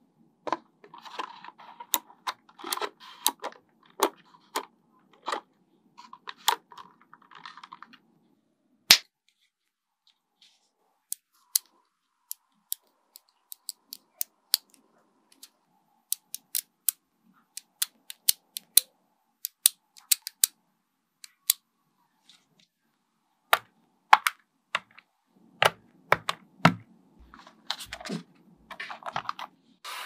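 Small neodymium magnet balls snapping together: a series of sharp clicks, with bursts of rattling as clusters of balls are handled in the first few seconds and again near the end.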